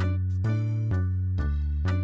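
Background music: sustained pitched notes over a heavy bass, with a new note struck about twice a second in a steady beat.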